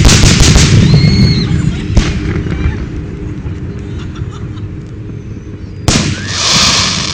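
Fireworks going off: a loud shell burst right at the start whose boom rolls on for about two seconds, a second sharp bang about two seconds in, and a third bang near six seconds followed by about a second of hissing crackle.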